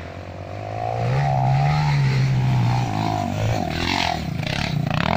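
Dirt bike engine revving hard on a steep uphill climb, its pitch rising and falling, with rough scrabbling noise near the end.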